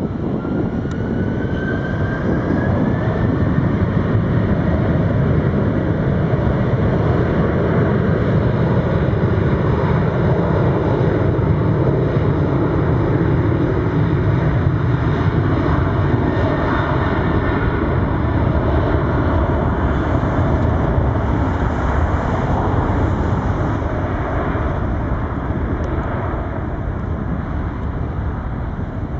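Boeing 737-900's CFM56-7B turbofan engines running as the jet taxis, a steady loud jet rumble with a thin whine that rises in pitch over the first few seconds.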